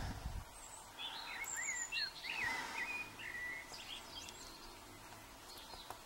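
A bird singing faintly in the background: a quick run of short chirping notes that slide up and down, lasting about two seconds, then only faint room noise.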